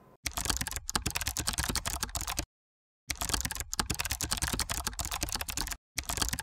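Rapid computer-keyboard typing clicks, a typing sound effect timed to text typing itself onto the screen, with a pause of about half a second in the middle.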